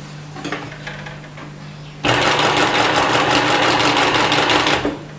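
Industrial sewing machine, driven by its new servo motor, stitching through fabric. It starts about two seconds in, runs in a dense fast ticking for about three seconds, and stops abruptly. Before it starts there is only a low steady hum and a few light clicks.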